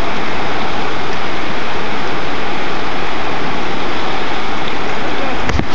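River rapids rushing steadily, a loud continuous whitewater roar, with a short low thump near the end.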